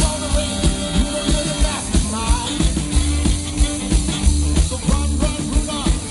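Live swing band, a little big band, playing a blues riff over a steady beat.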